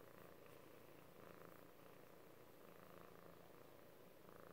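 Domestic cat purring softly while being stroked. The purr swells and eases with each breath, about once every second and a half.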